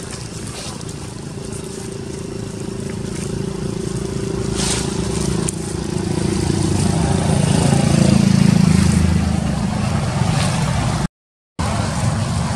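A motor running with a steady low rumble, growing louder to a peak about two-thirds of the way through and then easing, as if passing by. The sound cuts out completely for about half a second near the end.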